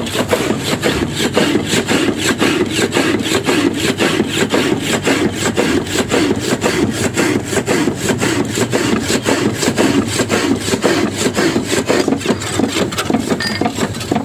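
Motor-driven power hacksaw cutting through a round steel bar, the blade rasping back and forth in a steady, rapid rhythm.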